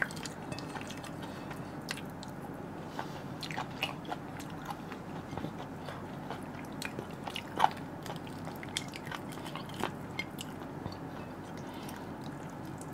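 A person eating chicken curry with their hands, chewing and biting meat off the bone, with scattered small clicks and crunches.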